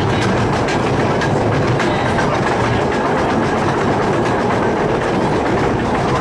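Miniature railway carriage rolling along its narrow-gauge track, heard from on board: a steady rumble of wheels on rail with light clicks over the rail joints.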